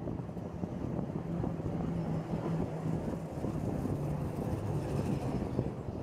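Territet–Glion funicular car running downhill on its track: a steady low rumble with a wavering hum and faint ticks of wheels on rail.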